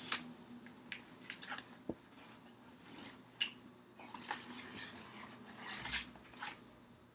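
A cardboard mailer being opened by hand: scattered scrapes, rustles and light clicks of cardboard and packing, with a sharp click about two seconds in and the loudest scrape about six seconds in.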